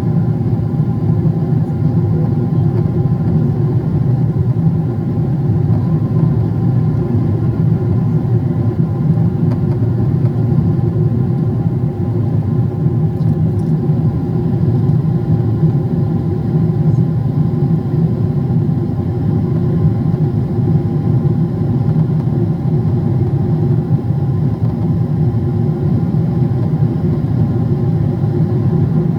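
Steady cabin noise of a Boeing 777-300ER in the climb, heard from a passenger seat: its GE90 engines at climb power and the airflow over the fuselage make an even low rumble with a few faint steady tones above it.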